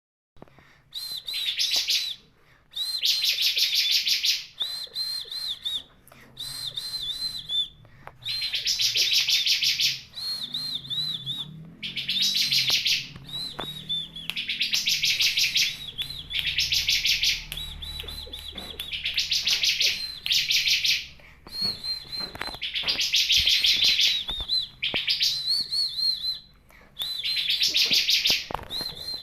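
Bar-winged prinia (ciblek kristal) singing: phrases of a few quick, high whistled notes, each followed by a fast buzzy trill, repeated again and again with short pauses between.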